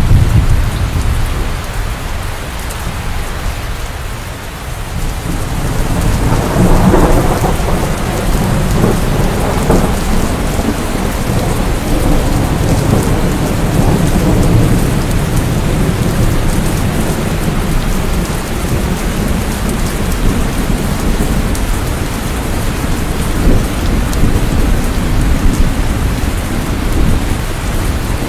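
Steady heavy rain with a deep rolling rumble of thunder underneath, swelling about six seconds in.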